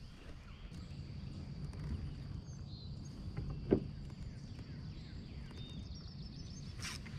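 Quiet open-air ambience on the water: a steady low rumble with a faint, thin, high steady whine, a single soft knock about halfway through, and a short hiss near the end.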